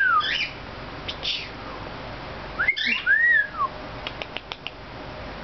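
Cockatiel calling: a short chirp about a second in, then about three seconds in a chirp followed by one whistle that rises and falls. A few light ticks follow.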